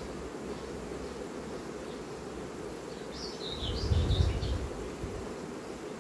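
Honeybees buzzing steadily around an open hive. A bird chirps about three seconds in, and there is a brief low rumble near four seconds.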